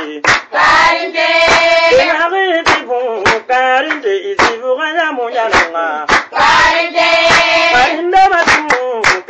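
A woman singing long, wavering melodic lines, with sharp hand claps at an uneven beat.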